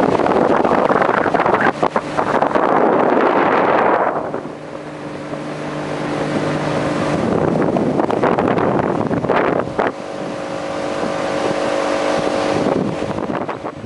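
Boat motor running while the boat travels across the water, with heavy wind rushing on the microphone for the first few seconds. The engine's steady drone then comes through more clearly, shifts pitch briefly, and cuts off near the end.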